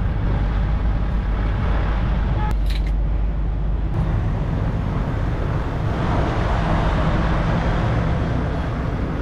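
Semi truck's diesel engine idling steadily, with a few light clicks around three and four seconds in.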